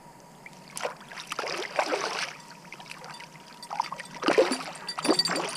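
Water splashing and sloshing as a landing net is dipped into the river to release a small channel catfish. It comes in two bursts, about a second in and again about four seconds in.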